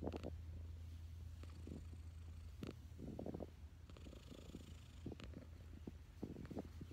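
Long-haired cat purring steadily while being scratched under the chin. The purr swells every second or so with its breathing, and a few faint clicks sound over it.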